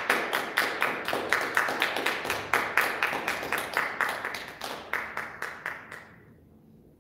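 Audience applauding, a steady run of claps that dies away about six seconds in.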